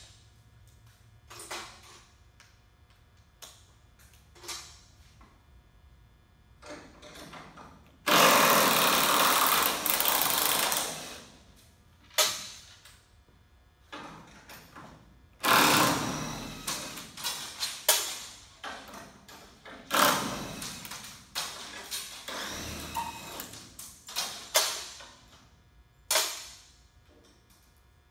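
A handheld power drill runs in several bursts of one to three seconds, the longest and loudest about eight seconds in, while a tarp-system bracket is being fitted. Sharp clanks and taps of metal parts and tools fall between the bursts.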